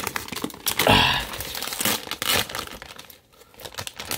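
Plastic potato-chip bag crinkling and crackling as it is pulled open by hand, loudest about a second in and quieter near the end.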